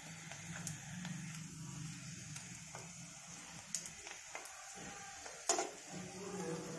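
Sabudana papad sizzling as it fries in hot oil in a kadai, with metal tongs clicking against the pan several times, the sharpest click about five and a half seconds in.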